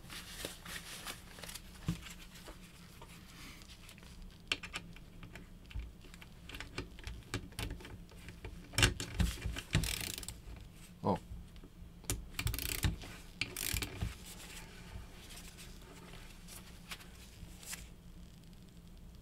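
Irregular clicks and knocks of a ratchet torque wrench being handled and set to tighten screws on a rifle, busiest in the middle, with one short metallic ring.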